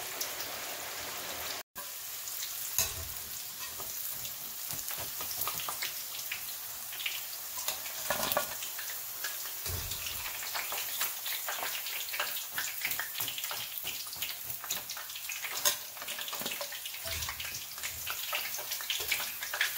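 Cubes of extra firm tofu deep-frying in hot oil in a pan: a steady sizzle full of small crackling pops, with a few dull knocks and a brief break about two seconds in.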